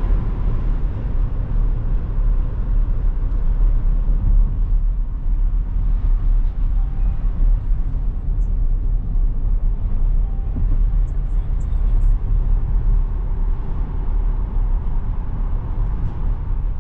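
A car being driven: a steady low rumble of engine and road noise.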